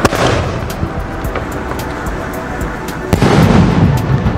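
An X Men Big Duos skyshot firework firing from its ground tube: a sharp launch bang at the start, a noisy hiss as the shell climbs, then a louder, deeper boom as the shell bursts about three seconds in.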